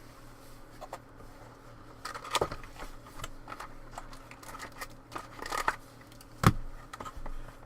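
Trading card packaging being handled and opened: crinkling wrapper and cardboard rustling with scattered small clicks, and one sharper click about six and a half seconds in.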